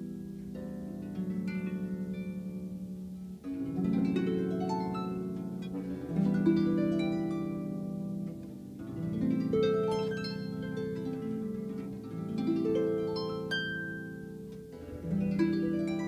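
Harp being played: plucked strings in rolled, arpeggiated chords, each group of notes left to ring, with a new swell of notes roughly every three seconds.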